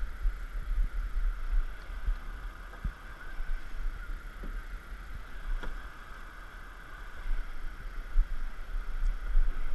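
Steady rush of a fast river rapid, with wind gusting on the microphone as a fluctuating low rumble.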